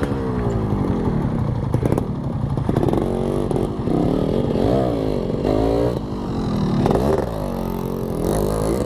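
Yamaha RX-King's two-stroke single-cylinder engine on the move, revving up and dropping back several times, its pitch climbing and falling in repeated sweeps.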